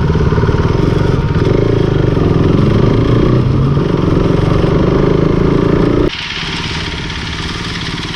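KTM RC 390's single-cylinder engine running at low speed as the bike rides along. About six seconds in, the sound cuts suddenly to a quieter, steadier engine and road noise.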